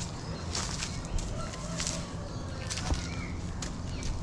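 Footsteps crunching through dry leaf litter and brushing past undergrowth, with a few sharp rustles, while small birds give faint short chirps.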